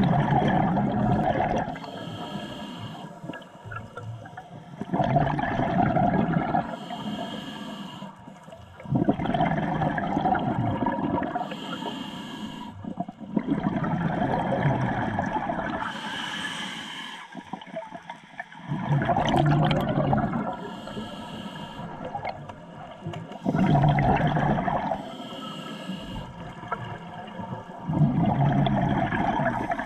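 Scuba diver breathing through a regulator underwater: a hissing inhale, then a gurgling rush of exhaled bubbles, repeating about every four to five seconds, seven times.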